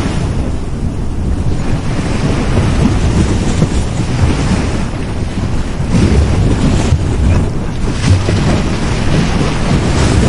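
Sea waves breaking and washing up a beach: continuous surf that surges a little louder about six and eight seconds in, over a low rumble of wind on the microphone.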